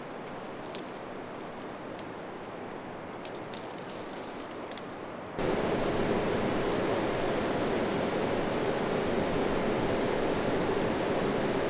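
Outdoor ambience: a steady rushing noise with faint scattered ticks, which jumps suddenly louder about five seconds in and then holds steady.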